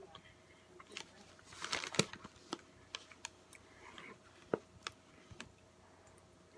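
A person chewing a mouthful of burger, with the crinkle of a paper wrapper being handled, loudest about two seconds in, and scattered small clicks and taps.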